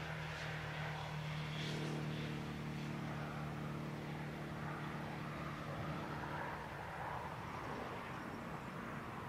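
Airbus ACJ319's twin jet engines running at taxi idle as the aircraft rolls past: a steady drone of several held tones over a broad rushing hiss.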